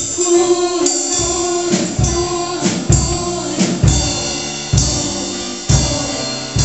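A song with singing over a steady drum beat, a low kick drum striking about once a second.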